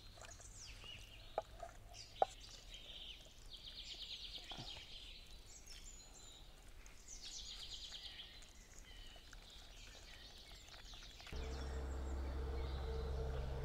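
Quiet rural outdoor ambience with a couple of light knocks and two bursts of rapid, high trilling calls from birds. Near the end a louder, steady low drone sets in.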